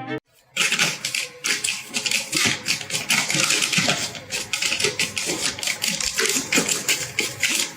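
Dense, rapid, irregular clicking and tapping that starts about half a second in after a brief silence.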